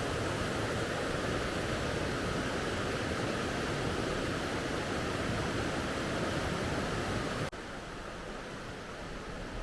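Steady rush of water falling at a waterfall. About three-quarters of the way through it drops suddenly to a quieter, similar rush.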